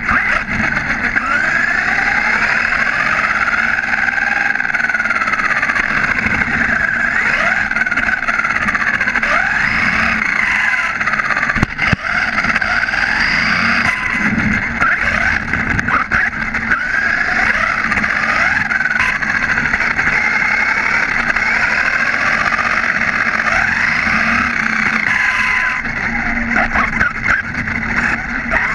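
HSP XSTR Pro RC buggy's electric motor and gearing whining, the pitch rising and falling over and over as the throttle is worked, over the rumble of small tyres on asphalt, heard from a camera mounted on the car.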